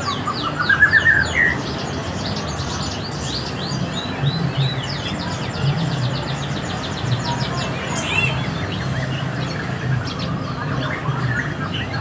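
Many caged songbirds chirping and twittering at once, with quick high notes throughout and a rising run of notes about a second in, over a low background hum.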